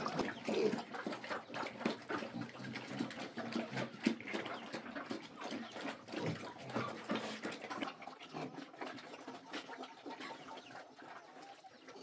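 Pigs chomping and slurping feed from a wet trough, a busy run of irregular smacking and clicking that grows quieter toward the end, with a few chicken clucks.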